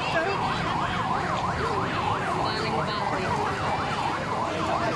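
Electronic siren in a fast yelp, its pitch sweeping up and down about four times a second.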